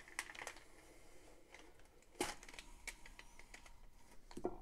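Razor blade cutting through brown paper backing along a frame's edge, with faint crinkles and ticks of the paper and one sharper snap about two seconds in.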